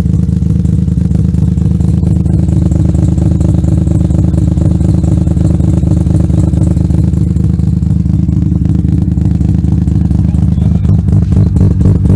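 Mazda FD3S RX-7's turbocharged 13B two-rotor rotary engine idling at the exhaust tip with a rapid, uneven "chop", the lumpy rotary idle tuned back in on its Haltech Elite ECU. Near the end the pulsing turns lumpier.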